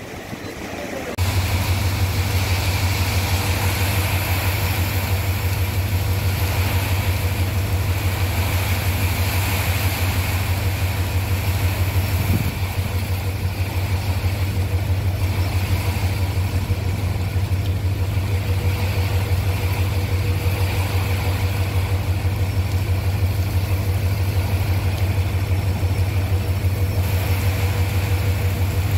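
Low, steady hum of a large idling engine with a fine even pulse, under the continuous hiss of heavy rain; both start abruptly about a second in.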